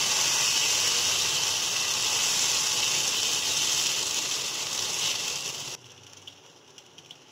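Steady hiss of suji dosa batter sizzling as it is spread with a steel ladle on a hot oiled pan. It cuts off abruptly about six seconds in, leaving only a few faint taps.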